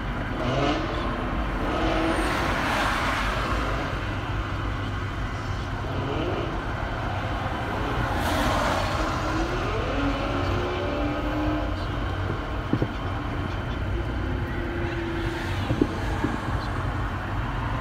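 Steady roadway traffic rumble, with faint wavering tones through the middle and a couple of sharp pops from distant fireworks later on.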